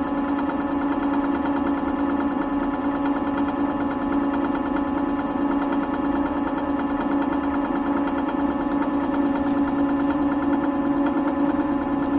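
Cycleboard Rover Gen 2 electric scooter's rear-wheel motor spinning the lifted wheel at a steady speed: a steady electric whine with a fast repeating rub. Something is hitting as the wheel turns, which the owner puts down to the brake calipers touching or to something in the motor.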